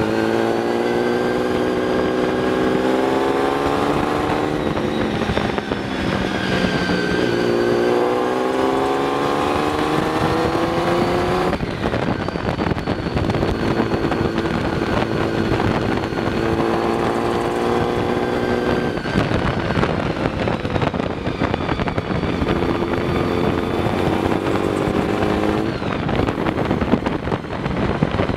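Engine of a 1934 Alfa Romeo Monza 8C replica running hard on the road, heard from the open cockpit over wind rush. Its pitch climbs and drops back several times, with a sharp break about twelve seconds in.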